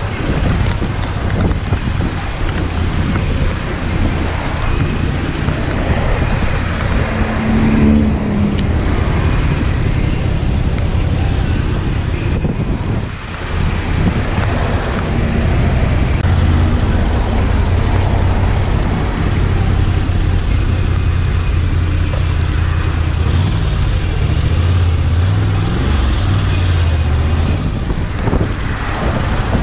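Motorcycle riding through traffic: the engine runs with its pitch rising and falling, under wind noise on the microphone and the noise of surrounding road traffic.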